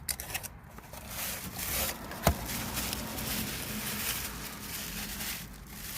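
Rustling handling noise, with one sharp click a little over two seconds in.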